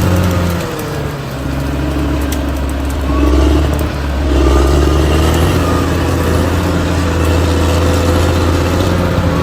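Bulldozer's diesel engine running under load. Its note drops about a second in, then swells again around three to four seconds in as the engine works harder.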